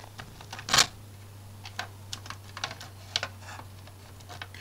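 Irregular light clicks and taps of hard plastic model-kit hull parts being handled and pressed together by hand, the loudest about a second in, over a steady low hum.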